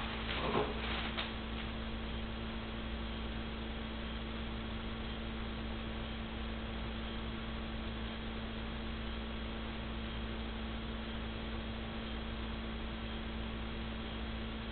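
Steady electrical hum with even hiss, with a few brief knocks and rustles in the first second.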